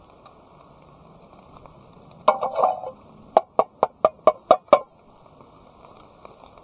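A brief clatter of clinks, then seven quick, evenly spaced sharp knocks, about four a second, over a steady rush of flowing water.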